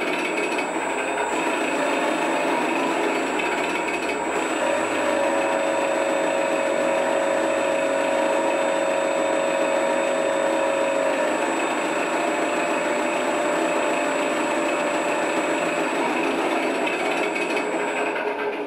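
Yak-12 R model plane's onboard sound module playing a simulated aircraft piston engine running steadily, mixed with the electric motor spinning the propeller. A higher steady whine joins from about five seconds in until about eleven, and the whole sound cuts off at the end as the motor is shut down.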